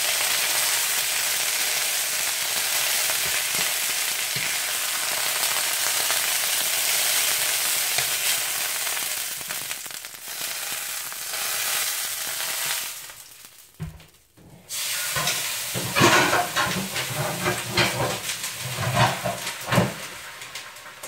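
Chicken breasts searing in olive oil in a nonstick frying pan, a steady sizzle. About thirteen seconds in, the sizzle cuts out, followed by several seconds of louder, irregular knocks and handling noise as the pan comes off the burner.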